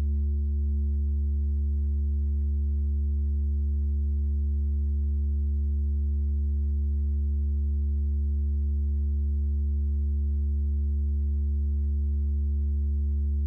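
A steady, unchanging low electronic tone, like a hum, with a few fainter higher tones held above it.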